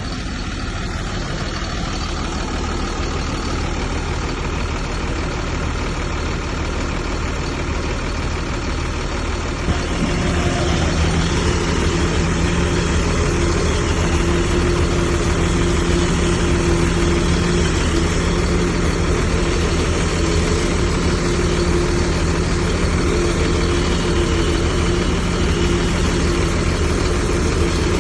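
Heavy diesel engine of a bulldozer running steadily, then about ten seconds in it rises to a louder, higher, steady pitch and holds there.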